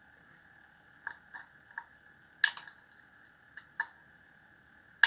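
A few sharp, irregular clicks and taps of a small part being handled and worked by hand. The loudest comes about two and a half seconds in.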